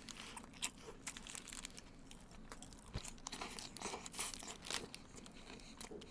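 Hamburgers being bitten and chewed close to the microphone, with paper wrappers crinkling: faint, irregular short crunchy clicks and rustles.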